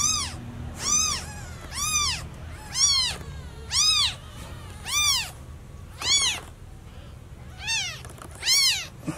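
Newborn kitten crying for its mother: loud, high meows about once a second, each rising then falling in pitch, with a short pause about seven seconds in.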